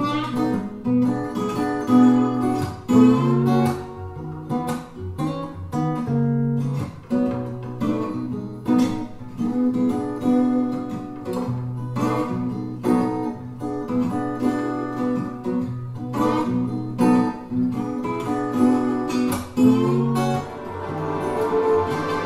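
Acoustic guitar blues instrumental with picked notes and strummed chords. Near the end it gives way to a rising swell.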